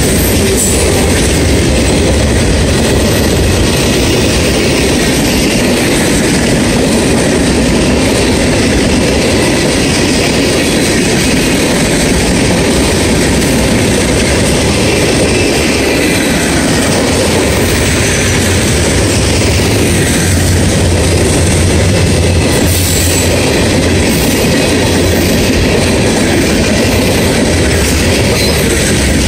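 CSX mixed freight train's cars, tank cars and covered hoppers, rolling past close by: a loud, steady noise of steel wheels running on the rails that goes on without a break.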